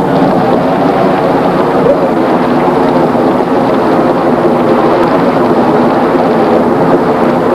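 Large crowd applauding and cheering steadily.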